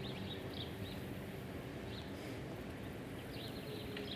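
Small birds chirping in short, high notes scattered throughout, over a steady low background rumble.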